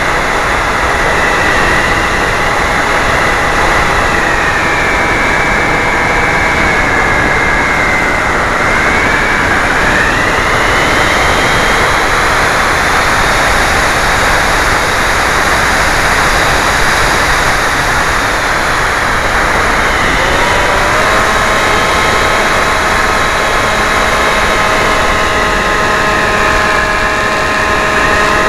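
A 2200 kV brushless electric motor and propeller on a foam flying wing, heard through an onboard camera's microphone: a loud, steady rush of wind with a high motor whine on top. The whine's pitch wanders and dips about a third of the way through, and about two-thirds in it changes to a steadier set of lower tones.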